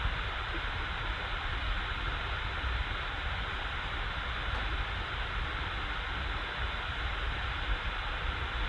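Computer cooling fan running hard as a steady whooshing hiss with a low rumble, the machine under heavy load while rendering.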